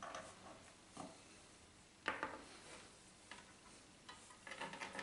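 Faint clicks and taps from handling electrical test leads with crocodile clips and banana plugs at a bench power supply, a few light clicks about a second apart and a small cluster near the end.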